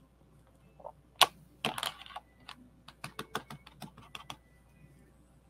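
A sharp click, a short rustle, then a quick run of about a dozen light taps: a clear stamp on an acrylic block being dabbed onto a black ink pad to ink it.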